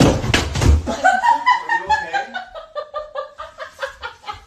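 Thuds of a person falling against a door frame and onto the floor, followed by a burst of high-pitched laughter in quick pulses, about four a second, fading near the end.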